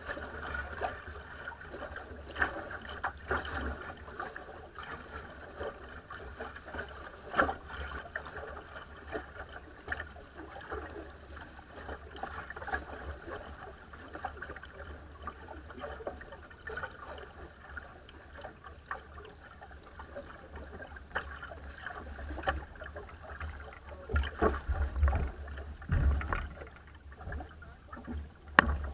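Water rushing and splashing along the hull of a small wooden sailing dinghy under way in choppy water, with irregular slaps of the bow into waves. Wind buffets the microphone as a low rumble that grows stronger near the end.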